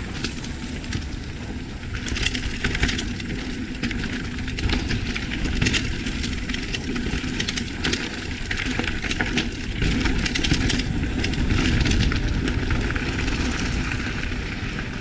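Mountain bike riding fast over a rough dirt trail: tyres crunching and the bike rattling in many quick knocks, with wind rumbling on the microphone.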